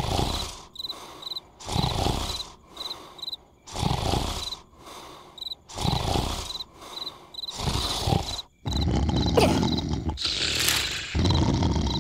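A sleeping cartoon larva snoring loudly, one long snore about every two seconds, with crickets chirping between the snores. From about nine seconds in the snoring runs on longer and louder.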